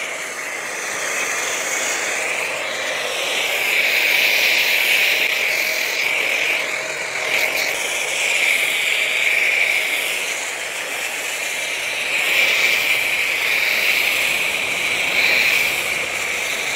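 A Ballorex CW130 2300-watt pressure washer running steadily while its foam cannon sprays a jet of foam onto a car, rising and falling gently in loudness.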